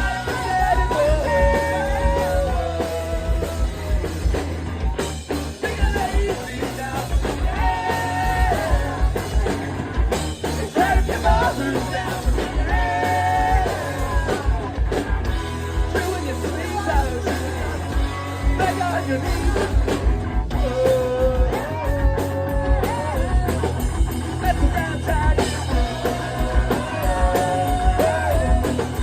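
Live pop-punk band playing a song: electric guitars, bass and drums with a regular kick-drum beat, and a lead voice singing over them.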